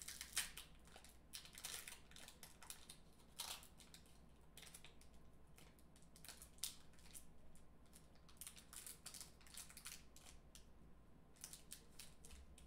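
Faint, irregular crinkling and crackling of a Magic: The Gathering booster pack's foil wrapper being picked at and pried open by hand.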